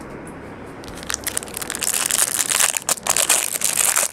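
Clear plastic wrapping on a pack of trading cards crinkling as it is handled and torn open. It starts about a second in as a quick run of sharp crackles and grows louder.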